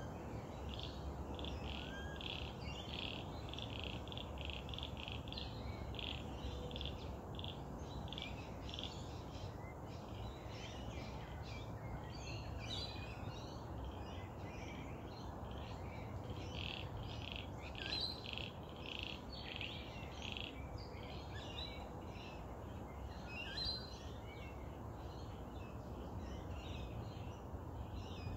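Frogs calling in quick runs of short repeated notes, mixed with birds chirping and calling, over a low steady rumble.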